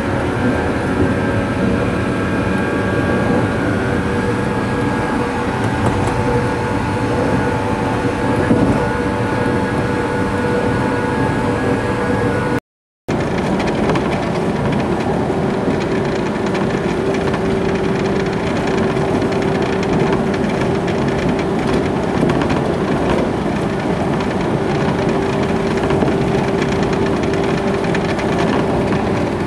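Electric train running, heard from inside the carriage: a steady rumble of wheels on rail with steady humming tones over it. The sound cuts out completely for about half a second a little under halfway through.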